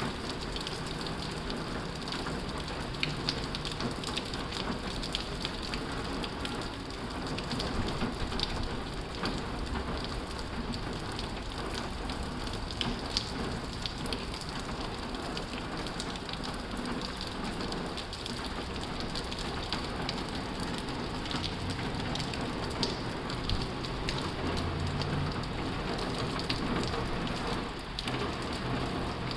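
Heavy rain drumming steadily on a tin roof, a dense hiss with many sharp drop ticks.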